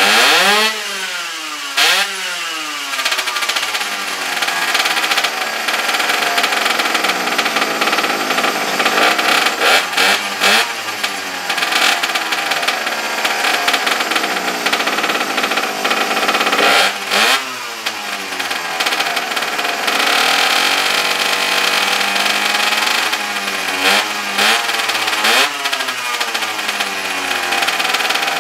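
Pocket bike's small two-stroke engine running, blipped on the throttle about five times. Each time the pitch jumps up and falls back to a lower running speed.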